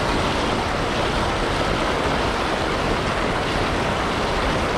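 Steady rushing of floodwater churning through a lake spillway, running high and fast after hard rain.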